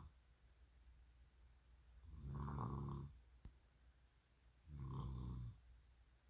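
Snoring in slow, regular breaths: two low snores about two and a half seconds apart, each lasting about a second, with a faint click between them.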